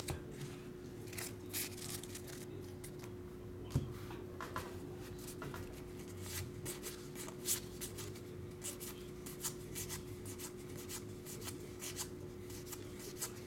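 Pokémon trading cards being handled and flipped through by hand: a scattered run of light card clicks and slides over a faint steady hum.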